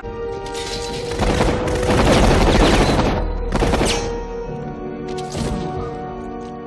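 Bursts of automatic rifle fire from a film soundtrack over orchestral score: one long burst about a second in, then two short ones.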